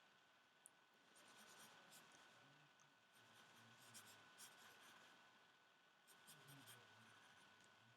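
Faint scratching of pencil strokes on paper as lettering is sketched, coming in short clusters of quick strokes with pauses between. A steady faint high whine runs underneath.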